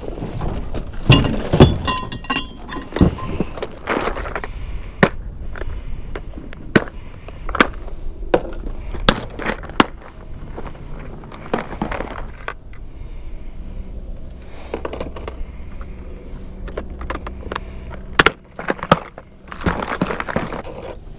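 Fishing tackle being rummaged through: a clear plastic tackle box of lures opened and handled, with irregular clicks, clinks and knocks of hard plastic and metal. The loudest knocks come about a second or two in, and there is one more sharp knock about three seconds before the end.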